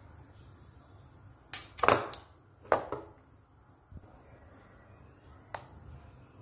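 Several sharp clacks and taps of kitchenware, a cluster about one and a half to three seconds in and one more near the end, as a bowl of besan batter and a plate of stuffed green chillies are handled.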